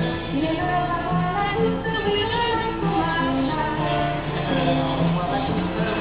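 Live street music: a song with a singing voice over instrumental accompaniment.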